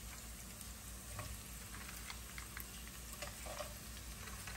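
Garlic and galangal frying gently in oil in a nonstick frying pan: a quiet, steady sizzle with scattered small pops and crackles. The pops pick up a little near the end as live blue crabs go into the hot oil.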